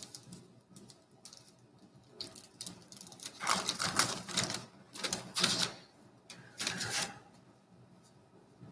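Baseball cards and packs being handled: scattered light clicks, then several short rustling bursts in the middle of the stretch, the loudest about halfway through.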